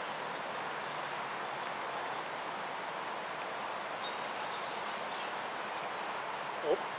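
Steady chorus of insects at dusk: a dense even hiss with a high, unbroken whine above it. A brief, louder sound cuts in near the end.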